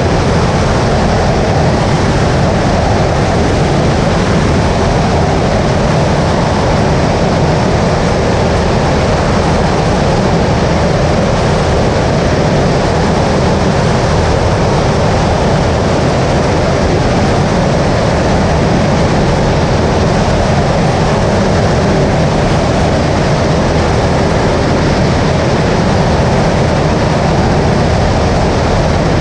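Skyleader 500 light aircraft's engine and propeller running at a steady setting, an even drone with wind rush.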